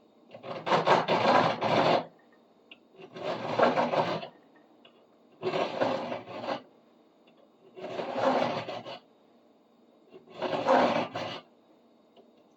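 Coarse hand file scraping across the cut end of a soft metal gear puller part, in five slow, even push strokes with short pauses between them, squaring the end so a wrench can grip it.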